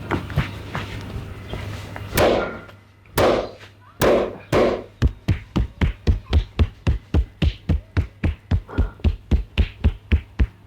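A masseur's hands striking the body in percussive massage strokes: a few separate, heavier slaps, then from about five seconds in a quick, even run of blows at roughly four a second.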